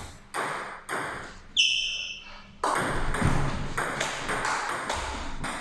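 Table tennis ball knocks echoing in a large hall: a few sharp pocks about half a second apart, then a quicker, denser run of taps in the second half.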